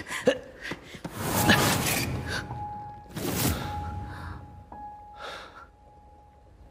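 Breathy gasps as two people tumble onto a sofa in a struggle, the loudest about a second in and another about three seconds in, followed by fainter breaths. A single held note of soft background music comes in about two and a half seconds in.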